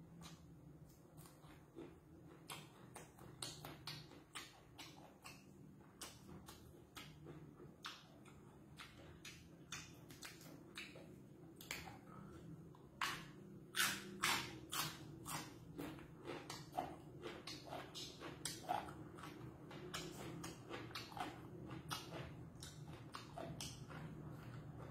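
Close-up mouth sounds of a person chewing raw chili peppers and fresh vegetables: a dense run of wet crunches and mouth clicks, busiest about halfway through. A steady low hum runs underneath.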